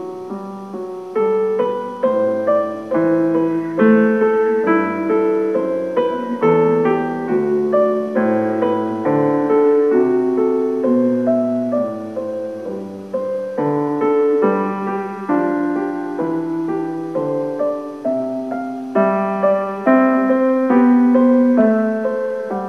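Piano music: a flowing run of struck notes and chords, each fading after it is played.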